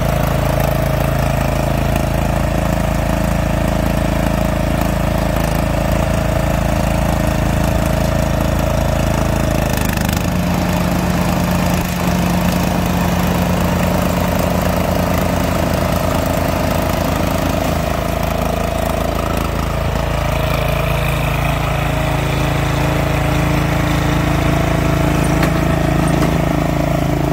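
Engine of a Cub Cadet CC760 ES self-propelled walk-behind mower running steadily while the mower drives across concrete; the engine note changes about ten seconds in.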